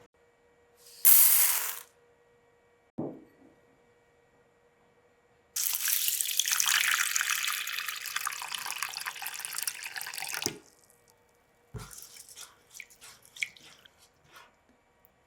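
Water running from a kitchen tap for about five seconds. Before it there is a short, loud rush of water, and around it come knocks and light clatter of kitchenware.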